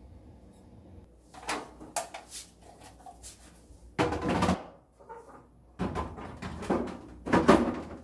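Clear plastic refrigerator door bins and shelf parts being handled and fitted back into place: a series of plastic knocks and clatters, with a half-second scraping rattle about four seconds in and the loudest knocks near the end.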